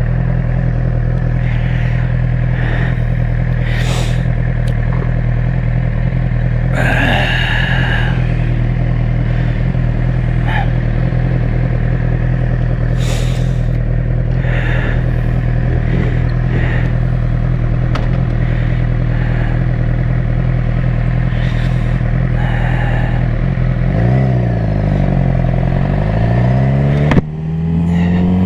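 Suzuki GSX-R sportbike engine idling steadily, running cleanly now that its sticking secondary throttle valve actuator has been freed. Near the end the bike pulls away: the revs sag and recover, a gear clicks in, and the revs climb.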